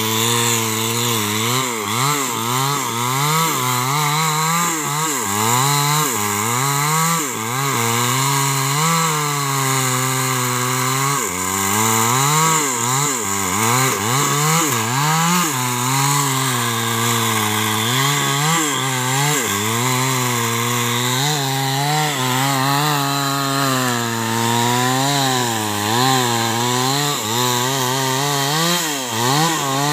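Small two-stroke chainsaw at full throttle, cutting into the base of a large albasia trunk. Its engine pitch dips and recovers every second or two as the chain bogs in the wood and frees again.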